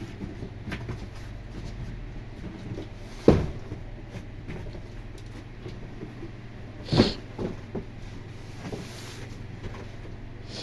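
Knocks and clicks from handling the boxed air-conditioner unit: two loud thumps, about three seconds and seven seconds in, among smaller knocks, over a steady low hum.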